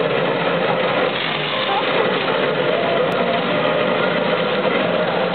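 Fire hose spraying a steady jet of water, a continuous rushing noise that does not let up, with children's voices faint underneath.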